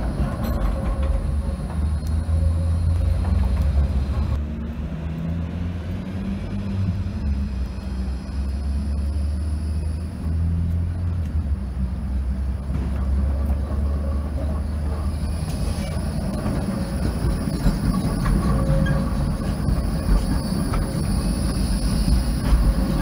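City trams running on street track: a steady low rumble of steel wheels on the rails and the tram's running gear, with no clear squeal standing out.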